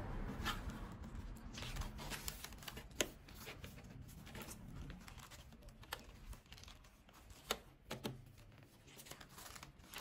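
Sheets of paper rustling and being shuffled as pages are fitted into a wire binding machine and a spiral-bound notebook is flipped through. A few light clicks and taps are spaced through it.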